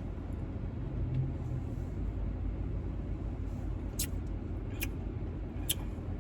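Steady low rumble inside a car cabin, with three short sharp clicks about four to six seconds in.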